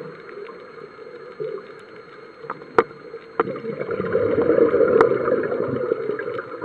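Underwater noise heard through a dive camera's housing: a diver's regulator exhaling a gurgling rush of bubbles that swells up about halfway through, with a few sharp clicks.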